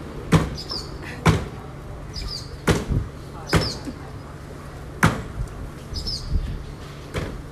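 Cleaver chopping down onto a round wooden chopping block, a series of sharp, uneven knocks about one a second, some coming in quick pairs.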